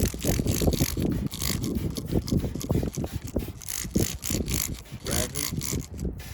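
A sanding pad wet-sanding a plastic headlight lens by hand, rubbing in quick back-and-forth strokes.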